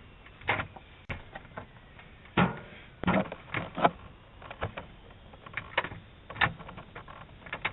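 A doorknob being wiggled and rattled: irregular clusters of sharp clicks and metal knocks, heard through a doorbell camera's microphone.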